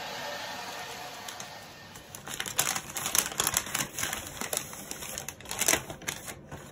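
A hand-held hair dryer blowing, fading out over the first two seconds. Then a brown paper bag being opened and unfolded by hand: a quick run of crisp paper crinkles and rustles.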